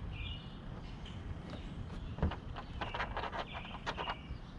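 Light metallic clicks and taps as a steel hood pin and its retaining clip are handled, starting about two seconds in, with one dull thump among them. Birds chirp in the background.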